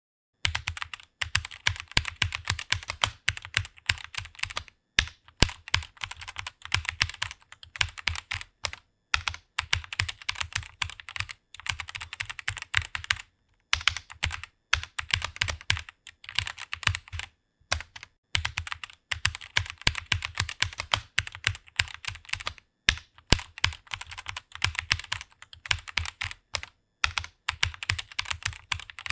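Computer keyboard typing: fast, continuous runs of key clicks broken by short pauses about every four to five seconds.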